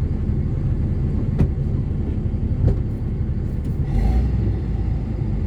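Ford Cargo 2428 truck's diesel engine running steadily under way, a dense low rumble. Two sharp knocks come about a second and a half and nearly three seconds in, and the rumble swells briefly about four seconds in.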